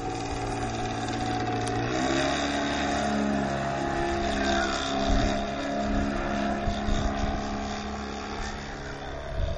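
Radio-controlled Katana aerobatic model airplane flying overhead, its engine and propeller buzzing steadily; the pitch steps up about two seconds in and then holds.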